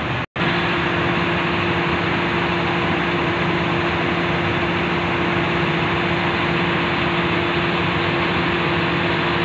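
XCMG 25-ton truck crane's diesel engine running steadily with a constant hum while the crane works a lift. The sound drops out for an instant shortly after the start.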